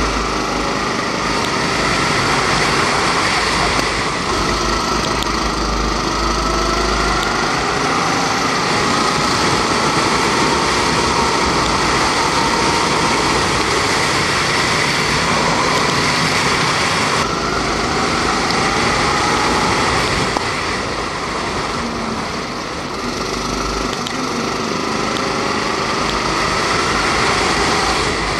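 Onboard sound of a rental go-kart's Honda 270 cc four-stroke engine running hard, its pitch rising and falling through the corners. It dips briefly in loudness about two-thirds of the way through.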